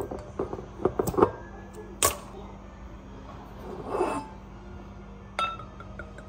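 Handling noises of a wine bottle and wine glass at a kitchen counter: a run of small clicks in the first second and a half, a sharp knock about two seconds in, and near the end a clink with a short ring as glass meets glass.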